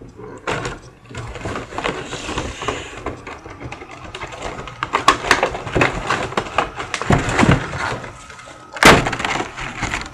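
A toy's cardboard box and plastic packaging being opened by hand: continuous irregular crinkling, crackling and clicks, with a louder burst about nine seconds in.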